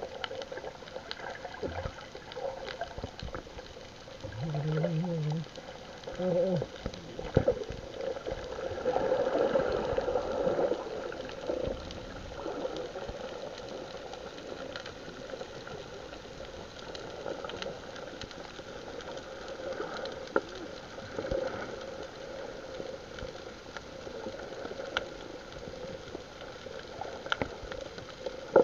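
Sea water churning and splashing around the boat, over a steady low hum. Two short shouted calls come about five and six seconds in.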